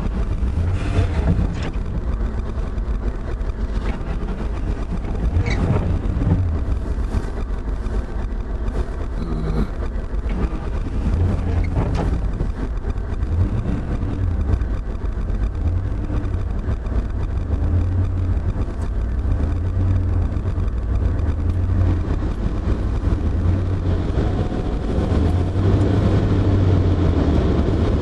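Freight train running by: a steady low rumble with a few sharp clanks, getting louder near the end.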